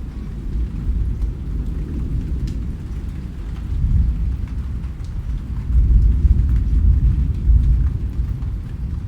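Steady rain with a heavy low rumble beneath it that swells about four seconds in and again from about six to eight seconds; scattered single drops tick faintly above it.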